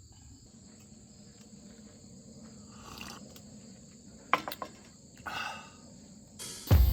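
Steady, high-pitched insect chirring, with a few soft knocks and rustles between about three and five and a half seconds in. Music starts right at the end.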